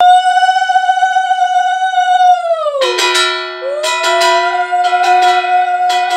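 Conch shells (shankha) blown in long steady notes, the first bending down in pitch about three seconds in as another note takes over. A hand bell rings quickly and repeatedly alongside from then on, the sounds of a puja.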